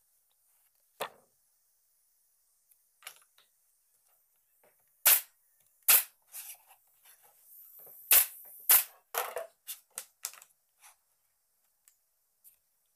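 A series of sharp, irregularly spaced knocks and cracks from woodworking on small wooden parts. The four loudest come in the middle, with fainter taps between them.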